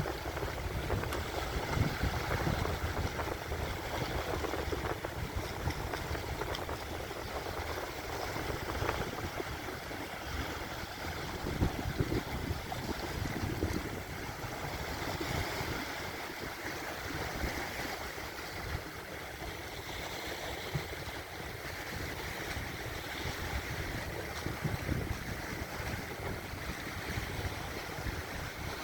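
Surf on the Volga river: small waves breaking and washing against the embankment, a continuous, uneven wash of water that swells and eases.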